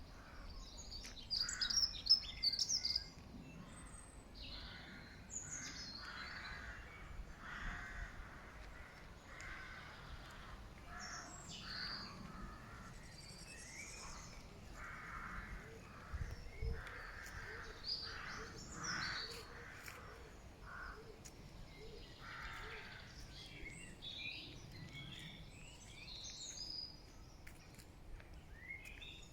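Wild birds calling: a series of short, harsh calls repeated every second or two, mixed with higher chirps from smaller birds.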